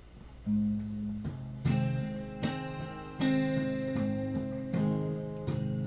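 Acoustic guitar playing the intro of a country song: chords struck one after another and left to ring, starting about half a second in.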